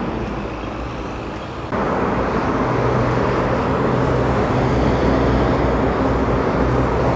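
City road traffic: buses and cars driving past, a steady rushing noise. It gets suddenly louder about two seconds in, and a low, steady engine hum then runs underneath.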